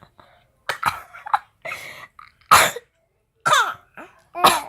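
A young child coughing in a series of short, separate coughs, about six across the few seconds, some with a brief voiced squeak. It is the cough of a child who has a cold.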